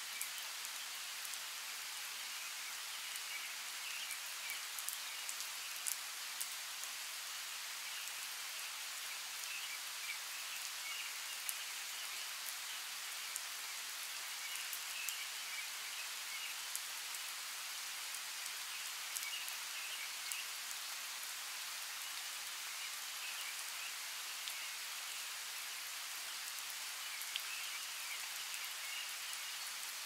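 Steady rain falling on rainforest foliage, with scattered sharp ticks of individual drops close by and faint chirps now and then.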